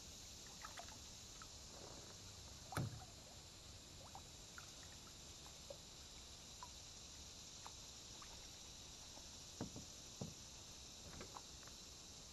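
A kayak drifting quietly with the paddle stilled, over a steady faint high insect hiss. There are a few light knocks against the hull, the loudest about three seconds in and two more near ten seconds, and scattered small ticks.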